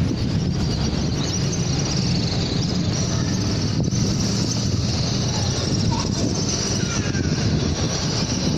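Wind buffeting the microphone: a steady, loud low rumble with hiss over it.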